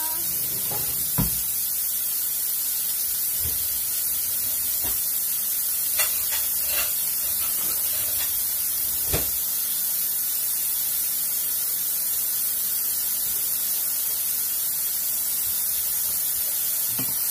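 Sliced mushrooms and celery sizzling in oil in a stainless steel frying pan on an electric stove: a steady hiss, with a few faint knocks.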